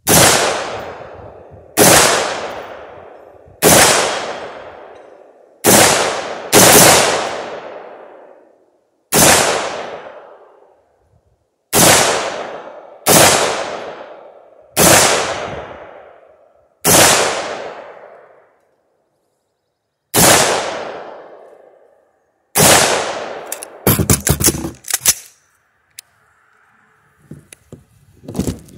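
A BCM AR-15 rifle with a 16-inch midlength barrel fired shot by shot, about a dozen single shots one to three seconds apart, each followed by a long rolling echo. Near the end comes a quick string of about half a dozen shots.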